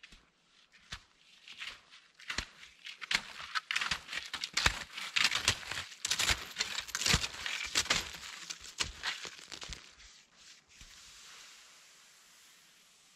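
Fischer Excursion 88 backcountry cross-country skis and poles crunching and crackling on crusty old snow as a skier strides uphill close past. The crunches are loudest in the middle, then give way near the end to a softer steady hiss as the skis slide away over the crust.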